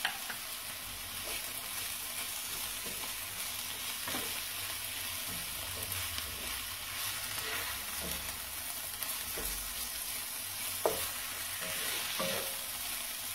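Blanched radicchio and onion sizzling as they fry in oil in a pan, with a few short clicks from stirring against the pan.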